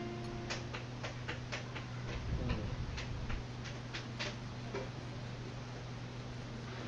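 Sandpaper wrapped around a wrench rubbed back and forth on a motorcycle drum brake's cam, smoothing its worn edge, the wear that keeps the brake from sliding back: a run of quiet, sharp scratching clicks, about three or four a second, that stops about five seconds in.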